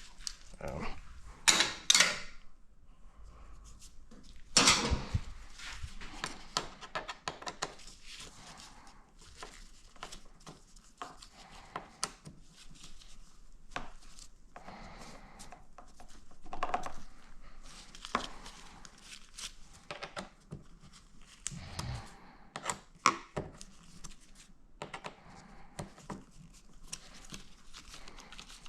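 Scattered clicks, taps and clunks of hand tools and small metal parts being handled while unbolting a motorcycle's fuel-tank mounting screws and their spacers, with a few louder clunks in the first five seconds.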